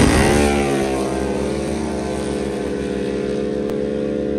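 Two drag-racing ATV engines at full throttle pulling away from the start line. Their note falls in pitch over the first second, then holds steady and slowly fades as they run down the strip.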